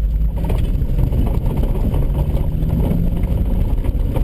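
Car engine running at steady revs under a heavy low rumble. The engine tone holds level for about three and a half seconds, then drops away near the end.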